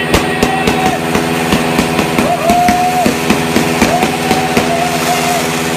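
Motorcycle engine running steadily, with repeated sharp pops of firecrackers going off throughout. A pitched tone repeatedly dips down and comes back up over it.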